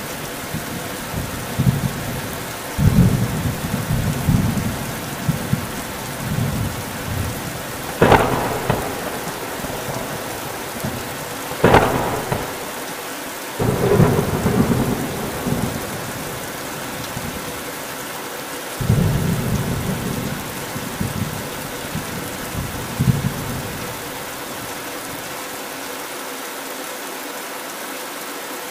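Hailstorm: a steady hiss of hailstones pelting a grassy field, with stretches of low rumbling and two sharp cracks, one about a third of the way in and one near halfway.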